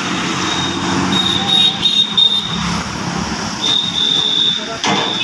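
Roadside vehicle engine and traffic noise with a low steady hum, overlaid twice by a thin, high, steady whistle-like tone; a couple of sharp knocks near the end.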